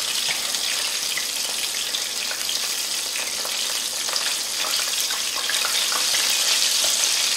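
Battered shrimp deep-frying in hot oil in a skillet: a steady hiss with fine crackling, a little louder over the last couple of seconds.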